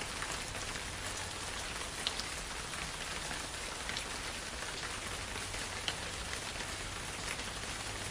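Steady rain-like hiss with scattered faint drop ticks.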